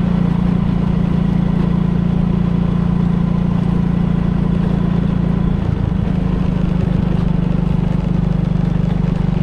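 Small motorcycle engine running steadily while riding along at an even speed, with a brief change in its note a little before six seconds in.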